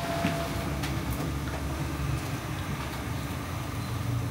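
Steady low hum and rumble of background room noise, with a few faint light clicks.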